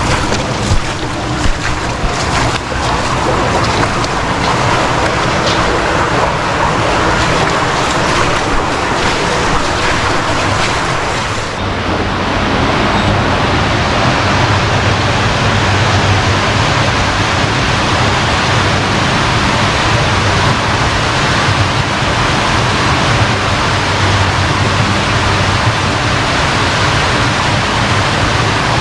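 Loud, steady rush of flowing stream water, with a few sharp clicks in the first dozen seconds. About twelve seconds in the sound changes abruptly, losing some of its high hiss.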